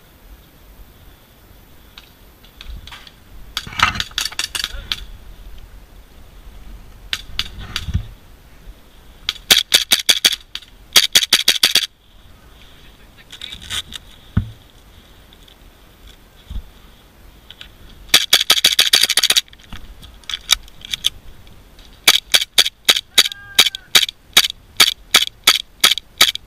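Airsoft guns firing: several rapid bursts of sharp cracking shots, then a steady run of shots about three or four a second near the end.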